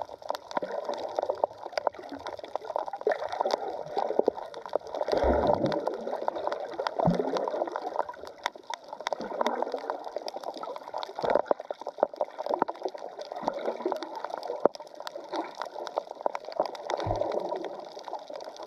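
Water sloshing and gurgling as heard by a camera held just under the surface. Dense crackling clicks run throughout, with a few dull thumps.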